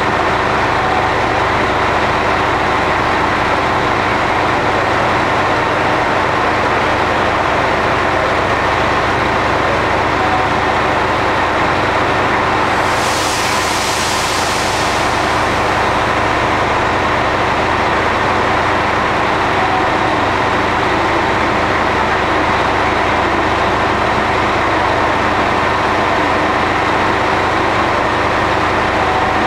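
KiHa 201 series diesel railcar idling at the platform, a steady diesel engine hum. A short hiss sounds about thirteen seconds in.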